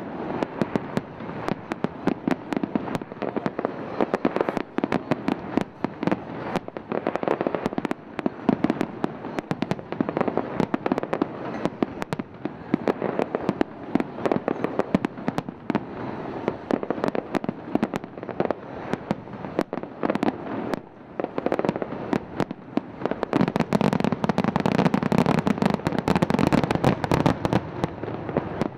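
Aerial fireworks display: a dense, continuous stream of rapid cracks and bangs from bursting shells, building to a louder, heavier barrage near the end.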